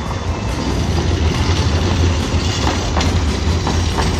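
Tatra T3 tram running along street track: a steady low rumble, with a few sharp clacks from the wheels over the rail joints in the second half.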